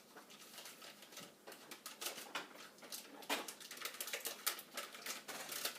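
Paper wrapper of a stick of butter being peeled off and crumpled: a run of irregular crinkles and clicks.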